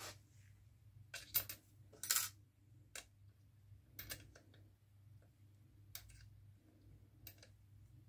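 Irregular small metallic clicks and knocks as steel parts of a watchmaker's lathe are handled, fitted and adjusted by hand, the sharpest pair about a second and a half to two seconds in.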